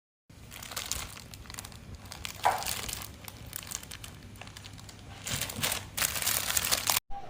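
Plastic packaging crinkling in uneven bursts as it is handled, with a sharp loud peak about two and a half seconds in and louder handling near the end, broken by a brief cut just after seven seconds.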